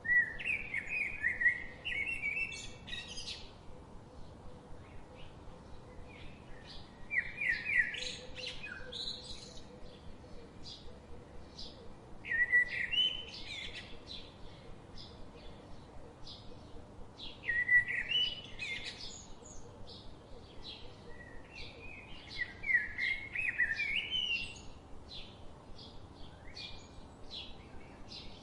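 A songbird singing a phrase of quick, chirping notes, repeated five times at intervals of about five seconds, with faint short chips between the phrases.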